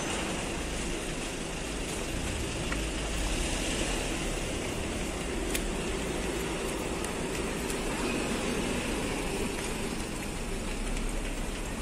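Steady background noise with a low rumble and a few faint clicks.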